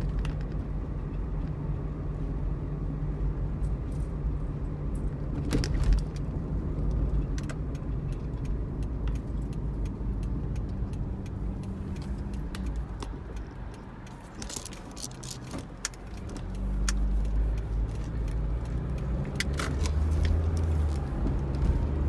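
Cabin noise of a Pontiac Vibe being driven on town streets: a steady low engine and road rumble with scattered light clicks and rattles. It eases off about two thirds of the way in, then picks up again as the car pulls away.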